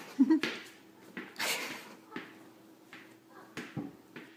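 Soft scattered scuffs and taps of a cat pouncing after a small ball on a tile floor, over a faint steady hum.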